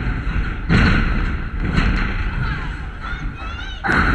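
Thuds close to the microphone, with a child's voice calling out near the end.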